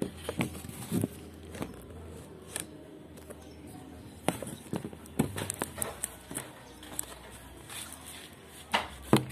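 Irregular light clicks, taps and scuffs on a plastic hamster container, close to the microphone, with a slightly stronger pair of knocks near the end.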